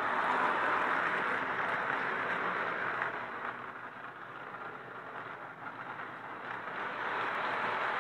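1936 Marx 0-4-0 tin plate toy train with tin plate cars running along the track with a steady mechanical rattle. It is loudest as the train passes close at first, quieter in the middle, and rises again near the end.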